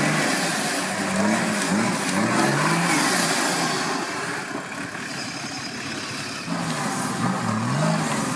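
Off-road 4x4's engine revving up and falling back several times in quick succession, over a steady hiss.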